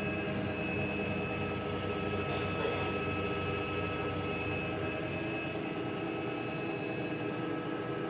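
Haier washing machine on its spin cycle: a steady motor hum with a thin high whine over it. The deepest part of the rumble fades about six seconds in.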